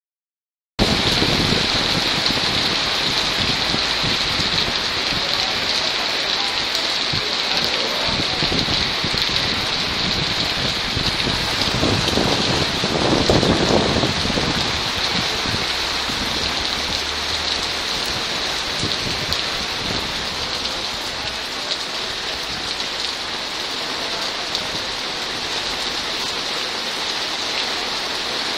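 Heavy cloudburst rain pouring onto a paved street and pavement: a steady, dense hiss, swelling louder about halfway through.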